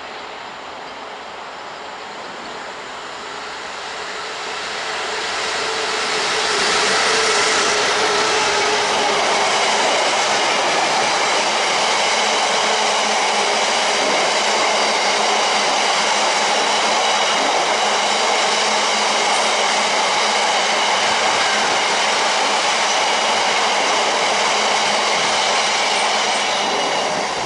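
Freight train of open box wagons passing close by on the rails. The rumble of wheels swells over the first several seconds as the train draws near, then holds loud and steady. Thin, steady high ringing tones run above the wheel noise.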